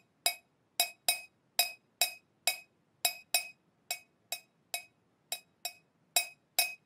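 Metal teaspoon tapping on a ceramic mug in a steady rhythm: about two or three short ringing clinks a second, many in quick pairs.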